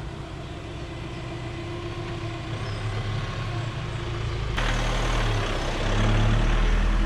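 VW Amarok's 2.0-litre four-cylinder TDI diesel engine running as the camper pickup drives slowly closer, growing louder. About four and a half seconds in the sound turns suddenly nearer and fuller, with tyre noise on cobblestones.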